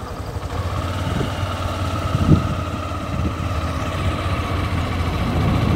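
A vehicle engine running steadily with low wind rumble on the microphone, slowly growing louder toward the end.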